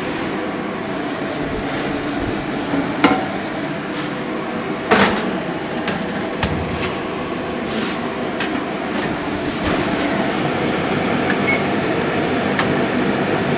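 A metal baking pan pushed onto an oven rack, with several knocks and clanks, the loudest about five seconds in. Near the end come a few short high beeps from the electric oven's keypad as its buttons are pressed, over a steady hum.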